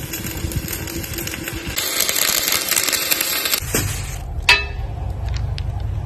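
Welding arc crackling and sputtering for about three and a half seconds. It then gives way to a steady low hum, with one sharp metallic click about a second later.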